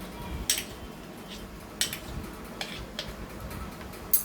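A few scattered clinks and taps of kitchen utensils against dishes, five or so sharp knocks spread irregularly.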